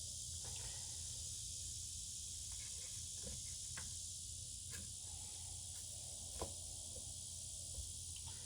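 Faint scattered taps and clicks of a picture frame and its parts being handled during assembly, over a steady hiss. One sharper tap comes about six and a half seconds in.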